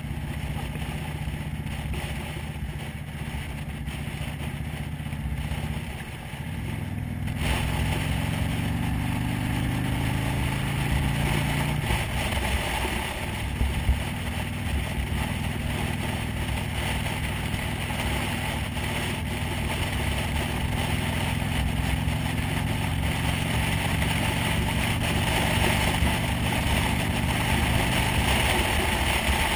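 Motorcycle engine running under way with wind and road noise. About six seconds in the engine pitch rises as it accelerates, drops at a gear change around twelve seconds, then holds fairly steady at cruising speed while the wind noise grows louder.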